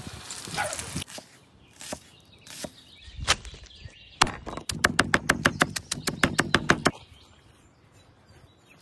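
A knife chopping green onions on a wooden stump board: a few single knocks, then a fast, even run of strokes, about nine a second, for nearly three seconds, stopping about seven seconds in.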